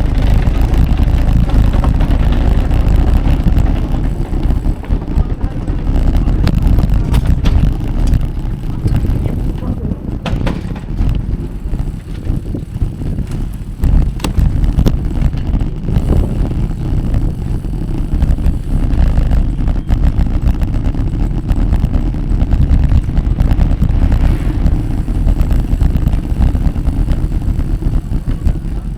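Wind rumbling on the microphone of a moving bicycle, a heavy, uneven low rumble that surges and eases throughout, with road noise beneath it.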